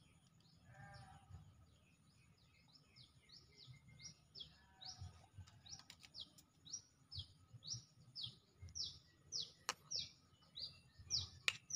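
A bird calling over and over: short, high, falling chirps, two or three a second, growing louder toward the end. Two sharp clicks sound near the end.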